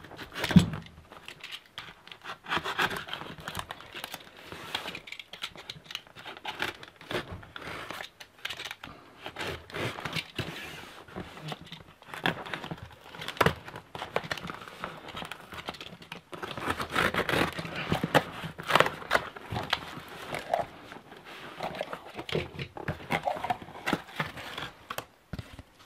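A cardboard shipping box being opened: a utility knife slicing through packing tape, the tape torn off, and the cardboard flaps pulled and folded open, giving irregular scraping, crinkling and tearing. A sharp thump about half a second in is the loudest sound.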